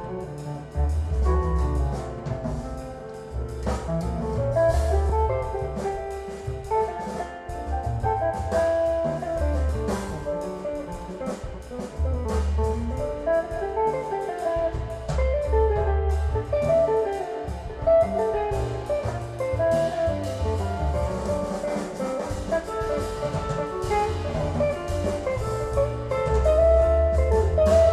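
Music with a jazz feel, guitar over bass and drums, played back through a push-pull tube amplifier and open baffle loudspeakers.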